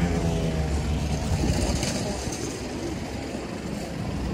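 City street traffic: vehicle engines running with a steady low rumble.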